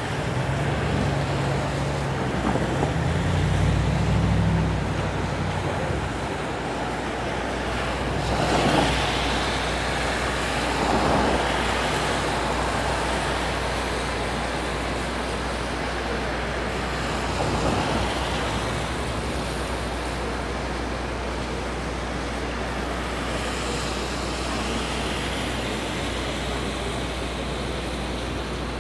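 City street traffic: a steady wash of road noise, with a vehicle's low engine hum in the first few seconds and three vehicles swishing past in the middle.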